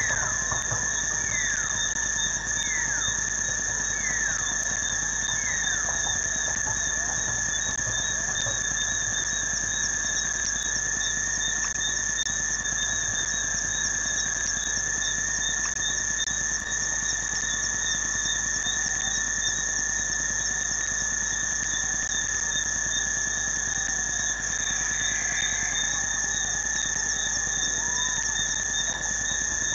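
Steady chorus of insects: several high, unbroken trills sound together with a fast pulsing chirp. In the first six seconds five short falling whistles repeat about every second and a half.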